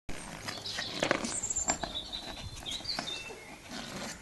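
A small stone clicking and scraping on concrete paving slabs as a papillon pushes it about, a string of irregular short knocks. Birds chirp in the background.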